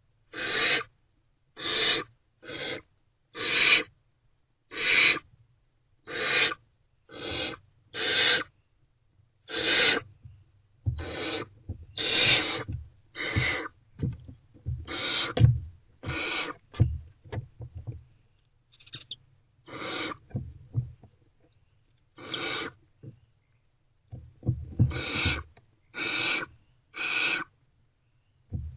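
Barn owlets giving their hissing begging calls, a harsh hiss of about half a second repeated roughly once a second, with low rustling in the nest box between the calls in the middle and near the end.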